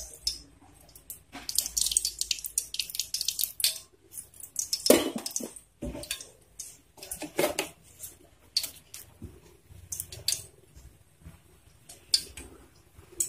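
Cooking oil pouring in a thin stream into a heated steel kadai, with dripping and irregular light crackling from the hot pan. There are a few louder knocks, the loudest about five seconds in.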